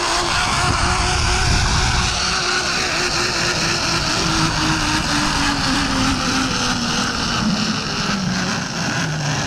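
Zipline trolley pulleys whirring along the cable with a continuous whine that slowly drops in pitch, under loud rushing wind noise on the microphone.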